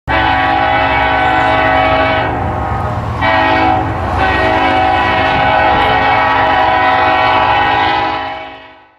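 Diesel locomotive air horn sounding a chord of several steady notes over the low rumble of the engine: a long blast, a short one, then another long blast that fades out near the end.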